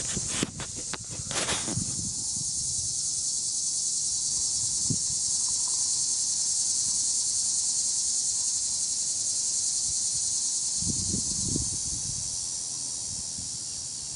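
Steady, high-pitched chorus of insects buzzing, with a few soft clicks in the first two seconds.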